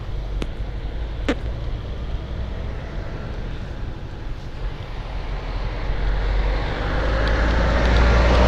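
Vehicle engine running with a steady low rumble, and a motor sound that grows steadily louder over the last few seconds. Two short sharp clicks come in the first second or so.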